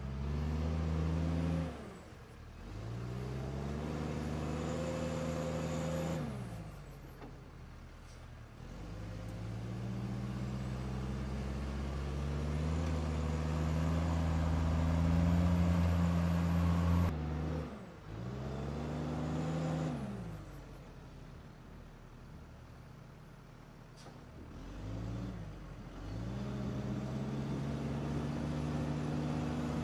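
Diesel engine of a military TRAM wheeled loader revving up under load and dropping back, over and over, as the loader pushes earth with its front blade. The revs hold high for several seconds in the middle, then fall off suddenly about two-thirds of the way in before climbing again.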